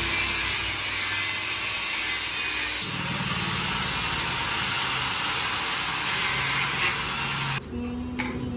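Power tool cutting metal stock: a steady abrasive hiss over a motor hum, changing in tone about three seconds in and cutting off abruptly a second before the end. A few light clicks follow.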